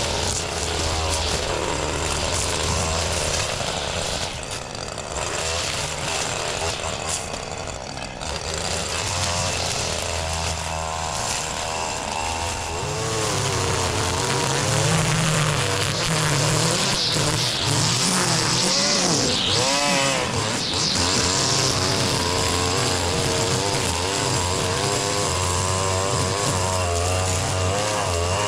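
String trimmer's small engine running and cutting grass. Its pitch rises and falls as the throttle and load change, and it gets louder about halfway through.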